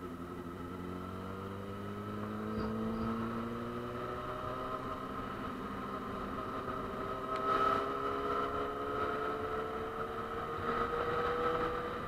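Motorcycle engine pulling steadily under load, its pitch rising slowly over about ten seconds as the bike gains speed.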